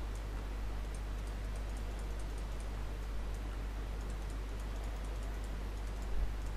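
Faint, irregular computer mouse clicks over a steady low electrical hum, with a soft low thump near the end.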